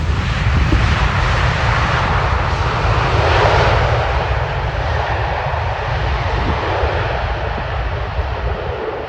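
Jet airliner's engines rushing past, the noise swelling to a peak about three and a half seconds in and then slowly fading, over a low rumble.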